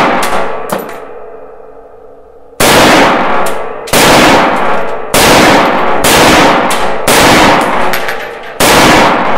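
FEG AMD-65 carbine in 7.62x39 firing six very loud single shots, about a second apart. Each shot is followed by a metallic ringing and a decaying echo.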